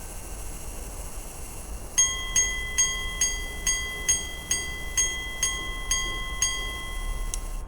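A repeating pocket watch striking its gongs: about a dozen evenly spaced, ringing chimes, a little over two a second, beginning about two seconds in. Before them, the ringing of earlier strikes fades away.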